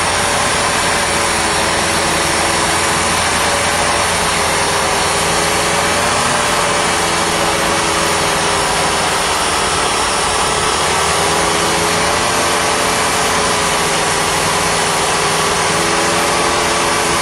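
Old Subaru's carburetted engine running steadily, its speed wavering slightly, while water from a garden hose pours into the carburetor throat. The engine keeps running on the water it takes in.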